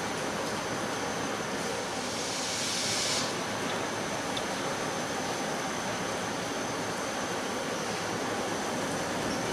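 Steam hissing steadily from LMS Royal Scot class locomotive 46100 as it stands in the platform, with a louder, brighter gush of steam about two seconds in that lasts about a second.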